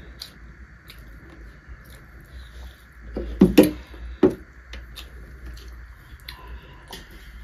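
Eating sounds at a table: small mouth clicks and smacks and fingers working rice on a metal plate, over a steady low hum. A few louder knocks come about three and a half to four seconds in, as a mug is set down on the table.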